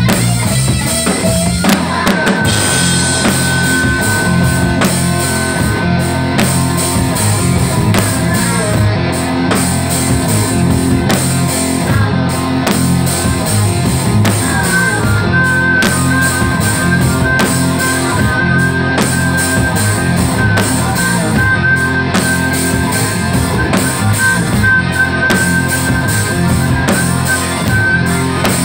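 Live rock band playing: a drum kit beating steadily under an electric guitar, with a long held high note over the band about two seconds in and again from about halfway through.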